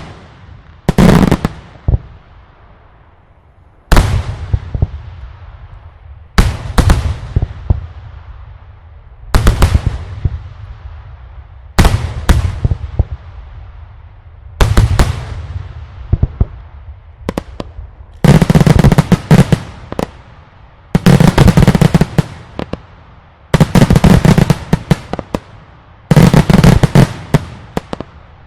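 Daylight fireworks display: loud single shell bursts every two to three seconds, each trailing a long echo. About two-thirds of the way in these give way to volleys of rapid-fire reports, each lasting about two seconds and coming every three seconds or so.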